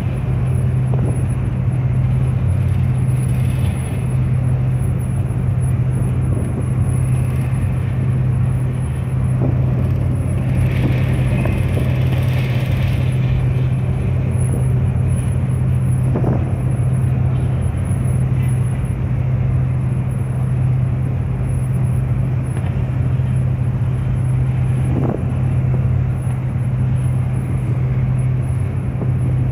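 A ship's engines give a steady low hum under the rushing of the churning propeller wake at the stern.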